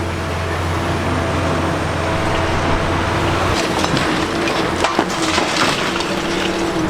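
Liebherr R 960 high-reach demolition excavator running steadily. From about halfway through, concrete and debris crunch and crack as they break.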